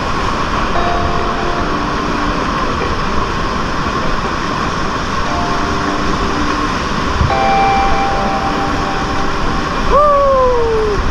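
Whitewater rapid rushing loudly and steadily around a kayak running through it. About ten seconds in, a short call falls in pitch over the noise of the water.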